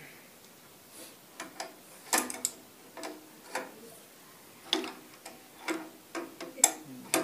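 About a dozen sharp metallic clicks and clinks at uneven intervals: a spanner working the fuel-pipe fitting at the injector of an 8 HP diesel engine. The loudest click comes near the end.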